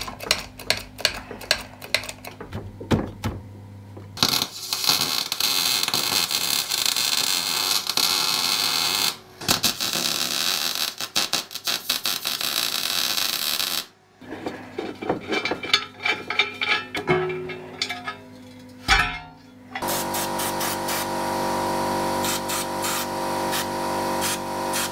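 Workshop work on a steel skid plate under a Jeep: sharp metal clicks and knocks, then an electric welding arc crackling in two long runs of several seconds each, more clicks and knocks, and a steady hum with several pitches near the end.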